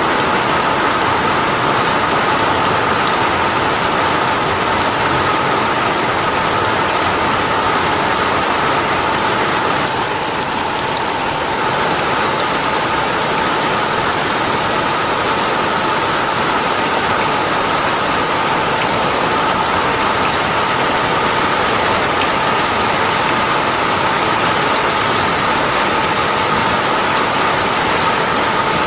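Steady, dense rain falling, an even unbroken hiss, easing very slightly for a moment about ten seconds in.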